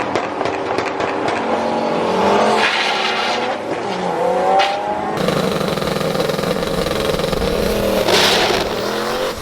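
A performance car's engine revving, its pitch rising and falling, then running hard at full throttle from about five seconds in, with a brief drop and climb near eight seconds like a gear shift.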